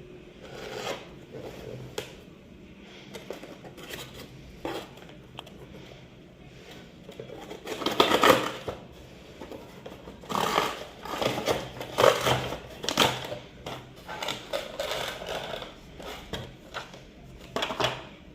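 Toy packaging being handled and opened: irregular rustling, crinkling and tearing of cardboard and plastic, loudest about eight seconds in and again between ten and thirteen seconds.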